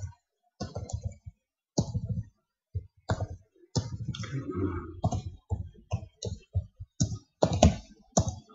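Typing on a computer keyboard: a string of separate, irregularly spaced keystrokes as a short command is typed in.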